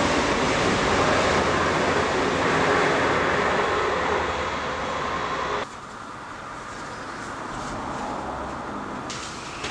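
Steady rumble of traffic crossing a road bridge, heard from underneath the deck. A little over halfway it cuts off abruptly to a quieter, steady background hum.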